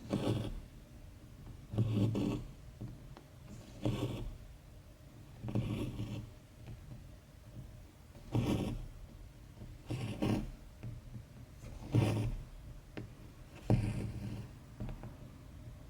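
Cross-stitch thread being drawn through fabric, a short rasping swish about every two seconds, with the odd faint tick of the needle between pulls.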